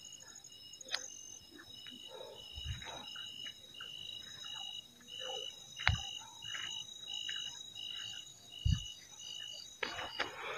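Night insect chorus in tropical forest: a high cricket-like chirp repeating about every two-thirds of a second over steady high-pitched insect trills. Scattered rustling and three low thumps come from someone moving through the undergrowth, with a burst of rustling near the end.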